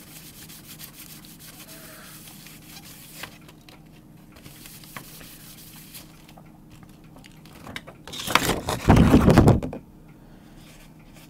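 A paper tissue rubbing over the plastic membrane foil of an Amiga 1200 keyboard, cleaning it with isopropanol: soft scrubbing in short spells. About eight seconds in, a much louder rustling burst lasting a second and a half as the foil is handled.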